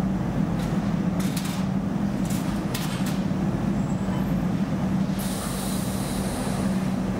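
Steady drone of an industrial washer-extractor with a constant low hum. A few short knocks come in the first three seconds, and a high hiss starts about five seconds in.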